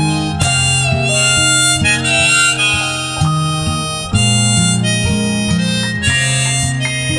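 Harmonica playing the melody in an instrumental break, over strummed acoustic guitar and piano accompaniment.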